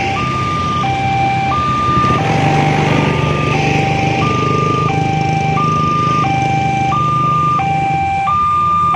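Electronic level-crossing warning alarm sounding a two-tone high–low chime over and over, about one high–low pair a second, meaning the crossing is active for an approaching train. Underneath, motorcycle engines run.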